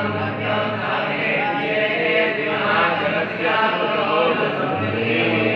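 A group of male voices chanting Sanskrit mantras together, continuous and overlapping, as is done during a Hindu abhisheka ritual.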